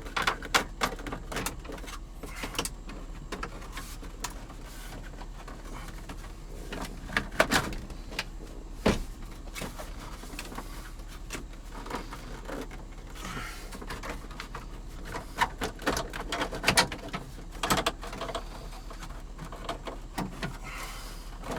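Hard plastic interior trim being handled and worked into place, giving irregular clicks, knocks and rattles.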